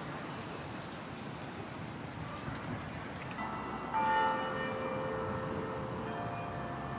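Steady city street noise, then, after a cut, church bells ringing: a strike about four seconds in and another about six seconds in, each with long ringing tones at several pitches.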